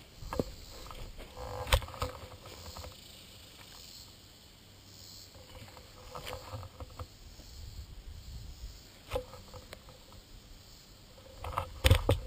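Handling noise from a camera mounted on a croquet mallet as the mallet is carried and swung over grass: rustling and low rumbles broken by sharp knocks, the loudest about two seconds in and a quick cluster near the end.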